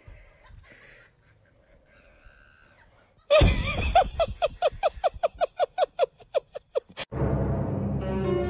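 A sudden, loud run of short, high-pitched cries, about five a second for some three seconds. It breaks off into steady background music near the end.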